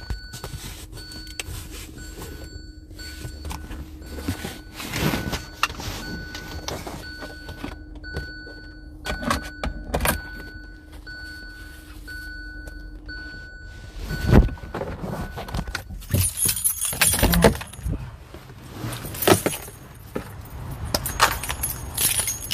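Keys jangling and phone-handling rustle as a person gets out of a car, with a short beep repeating evenly for the first two thirds and a loud thump a little past halfway.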